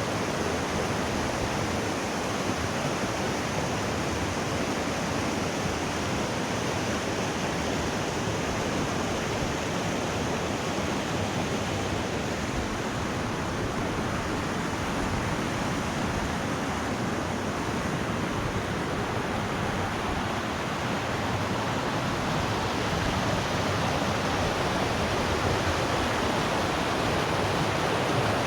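Putna waterfall: water falling and rushing in a steady, dense hiss with no pauses.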